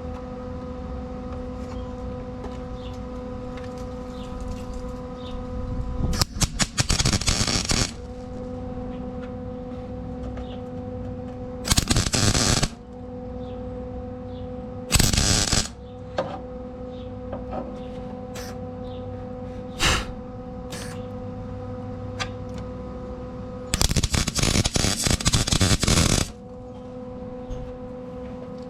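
Lincoln Weld-Pack 100 MIG welder, run on argon mix, laying short tack welds to fill holes in an engine-bay frame rail: loud crackling bursts of the arc, about one to two seconds each, four times plus a brief blip, the last burst the longest at about two and a half seconds. A steady hum carries on between the welds.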